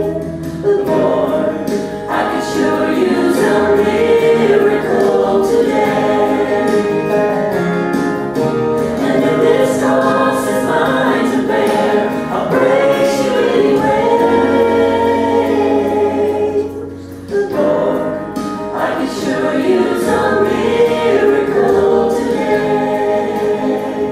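A gospel song sung by a man and a woman into handheld microphones, with held low accompaniment notes underneath. The singing dips briefly about seventeen seconds in, between phrases.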